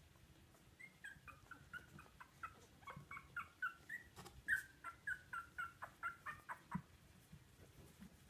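Two-week-old poodle puppy whimpering: a quick run of short, high, squeaky cries, about three a second, starting about a second in and stopping near seven seconds.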